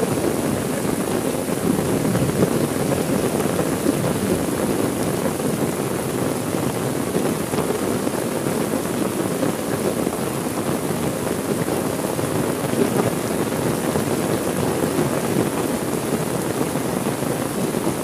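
Heavy rain falling in a steady, even downpour.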